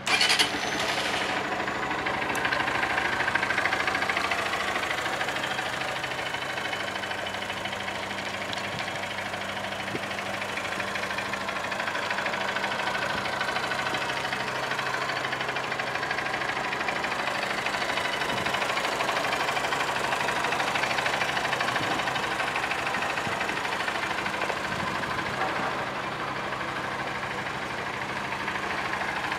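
2019 Honda CBF125R's single-cylinder four-stroke engine started on the starter button, catching almost at once, then idling steadily. The engine is in good running order.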